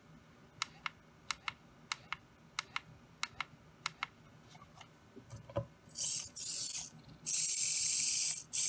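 Six pairs of sharp clicks from the transmitter's buttons being pressed and released. From about six seconds in, the micro RC car's tiny drive motor and gears whir high-pitched in five bursts of throttle, the longest about a second, with the wheels spinning free.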